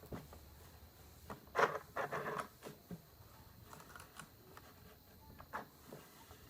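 Handling sounds after the sewing machine has stopped: scattered small clicks and rustles, with a louder burst of rustling about one and a half to two and a half seconds in.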